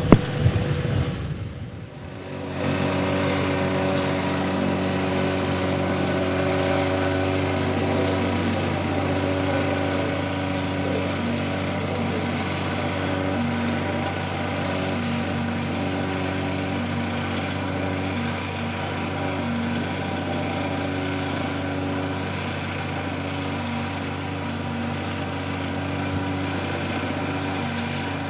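A locomotive hauling a train of loaded coal hopper wagons at slow speed, its engine running with a steady drone. Before it, the first two seconds hold a road-rail excavator working, with a sharp knock right at the start.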